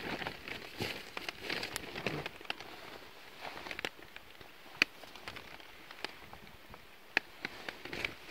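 Rustling of a rain jacket and a wet hat being handled and pulled on, with scattered sharp ticks through it.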